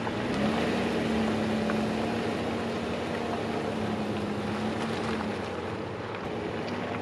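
Off-road vehicle's engine running steadily while climbing a dirt logging road, with tyre and road noise under it. The engine note breaks off for a moment at the start, then holds steady and fades after about five seconds.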